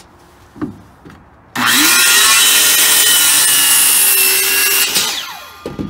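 Corded circular saw starting up and cutting through a 2x4 rafter board for about three and a half seconds, then the blade winding down with a falling whine.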